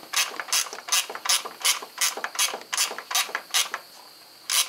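Short, stubby ratcheting wrench clicking in quick back-and-forth strokes, about three a second, as it turns the power steering pump's adjusting bolt to tension the serpentine belt. It pauses briefly near the end before one more stroke.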